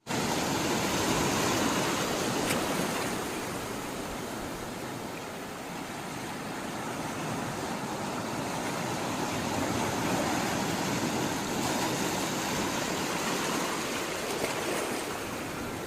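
Sea water rushing and washing in a steady roar, swelling and easing slowly in loudness as the water surges.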